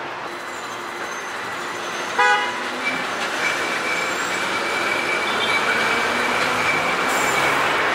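City street traffic noise, with one short vehicle horn toot about two seconds in. A steady high whine joins the traffic shortly after, and the noise grows gradually louder.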